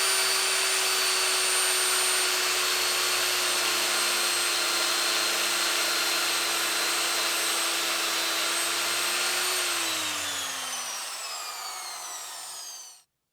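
Angle grinder running at full speed with a steady whine, then switched off about nine and a half seconds in, its pitch falling as it spins down. The sound cuts off abruptly near the end.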